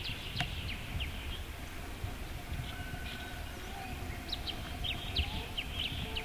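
Birds calling with many short, quick high chirps scattered throughout, over a low background rumble.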